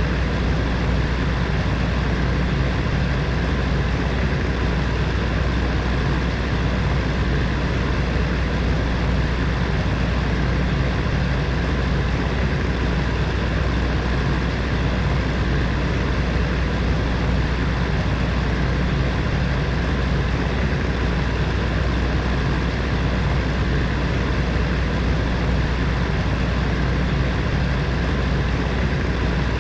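Heater fan running steadily: a constant rush of air over a low, even hum.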